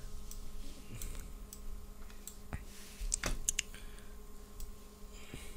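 Scattered light clicks of computer input, about a dozen in all with a quick run of them about three seconds in, over a steady faint electrical hum.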